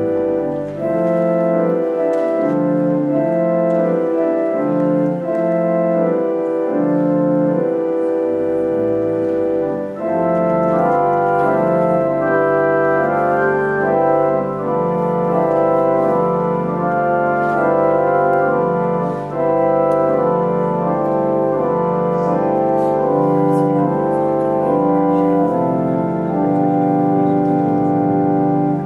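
Church organ playing slow music in held chords, with a deep pedal bass coming in about a third of the way through.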